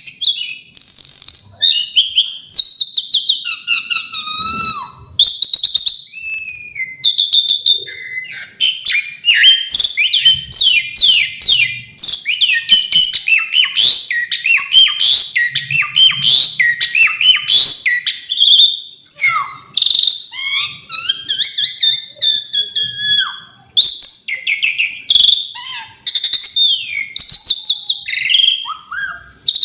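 Asian pied starling singing a long, varied song of rapid chirps, whistles and pitch glides with hardly a pause, a song that includes mimicked phrases of other birds.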